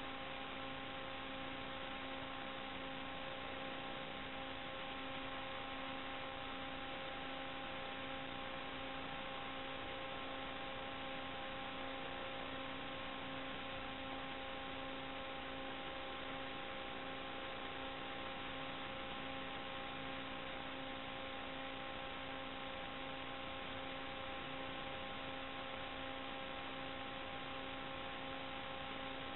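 Steady static hiss with a constant electrical hum and its overtones, unchanged throughout: the empty audio channel of an analog FPV video link recorded on the DVR, not the quadcopter's motors.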